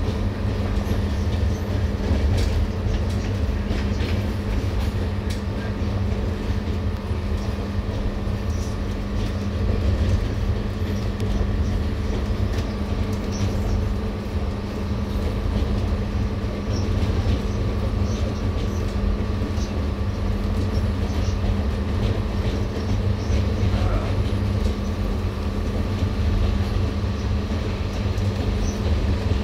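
Running noise of a diesel-hauled passenger train at speed, heard from inside the coach: a steady low rumble of wheels on rail with a constant hum over it.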